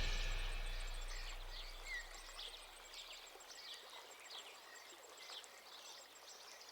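Background music dying away, then faint bird chirps: short falling notes about two a second.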